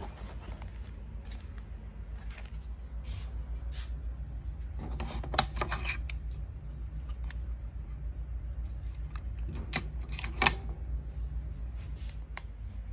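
Hands handling packaging and small plastic pieces: intermittent rustling and a few sharp clicks, two of them louder, over a steady low hum.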